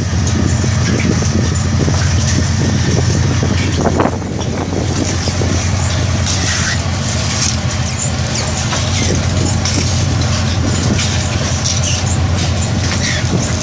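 Steady low drone of a squid-fishing vessel's engines and deck machinery, with a higher hiss over it and a single knock about four seconds in.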